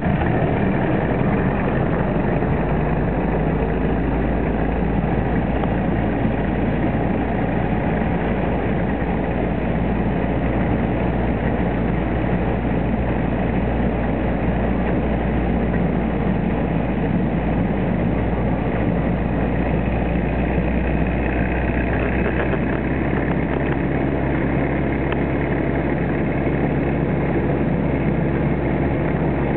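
A 1944 Willys MB jeep's four-cylinder Go Devil flathead engine runs steadily as the jeep rolls along railway track on rail wheels. Its low note shifts slightly about 22 seconds in.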